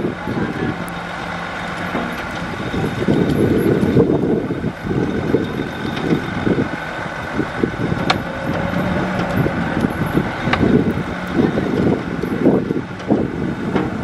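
Heavy diesel construction machinery running, its sound surging and easing unevenly, with two sharp clicks in the second half.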